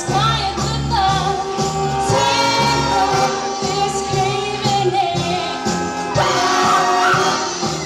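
Concert wind band playing, clarinets and brass over short low bass notes about twice a second, with a voice singing along.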